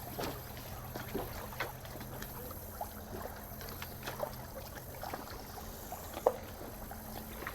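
Scattered light taps and clicks of handling in a small fishing boat, over a faint steady low hum.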